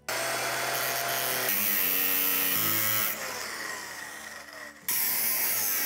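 Power tool cutting through a rusted steel tractor fender bracket, a dense high whirring whine that starts abruptly. It changes pitch and level sharply a few times, with a falling whine between about 2 and 4 seconds and a brief drop before it picks up again near the end.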